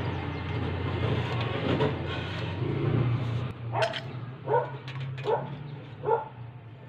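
A dog barks four times in quick succession, under a second apart, over a steady low hum that dies down just before the barking starts.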